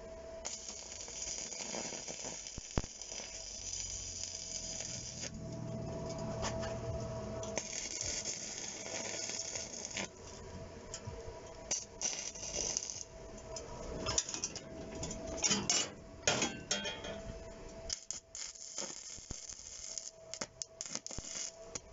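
MIG welder arc crackling as short stitch welds are laid on scrap gas-bottle steel, in stretches of a few seconds with short pauses between.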